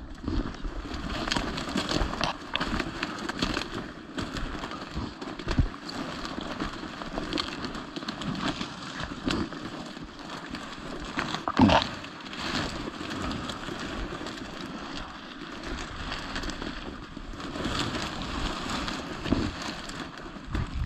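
Dry cattail stalks rustling and crackling as someone pushes through them on foot, with many small snaps and brushes that never stop. About halfway through there is one brief, louder sound.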